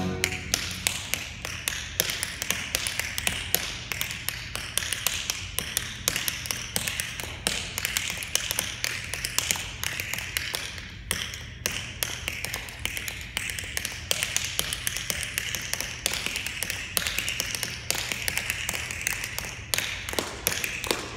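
Tap dancing without music: a dancer's tap shoes striking a hard floor in quick, busy patterns of taps.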